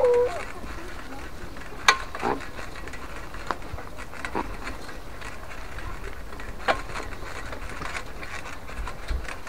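Mountain bike rolling along a dirt forest trail: steady tyre and wind noise with a low rumble, broken by sharp knocks and rattles from bumps, the loudest about two seconds in and another near seven seconds.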